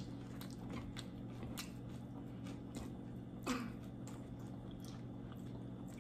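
Quiet chewing and crunching of loaded tortilla-chip nachos, faint short crunches scattered through, over a steady low hum. A brief sound that falls in pitch comes about three and a half seconds in.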